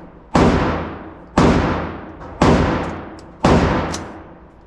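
Four gunshots, evenly spaced about a second apart, each ringing out in a long fading echo.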